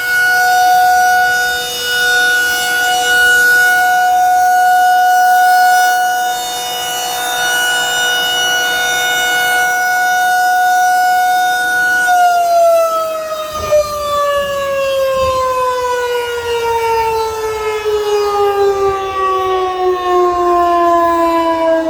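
Federal Signal 2001-SRN electromechanical outdoor warning siren sounding its steady one-minute alert test tone; about twelve seconds in the tone ends and the siren winds down, its pitch falling steadily.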